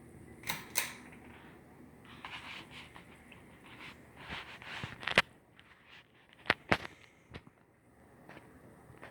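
A series of sharp clicks and knocks: a close pair about half a second in, a scattered run of lighter ones ending in a loud click about five seconds in, then another close pair and a single click a little later.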